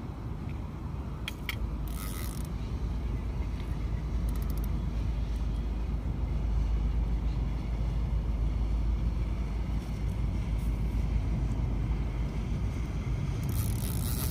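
Spinning fishing reel being cranked, its gears turning as line is wound in, over a steady low rumble of wind on the microphone. Brief hissy swishes come about two seconds in and again near the end.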